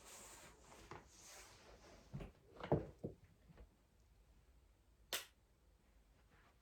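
Hands handling small objects: a light rustle, then a few soft knocks and one sharp click about five seconds in.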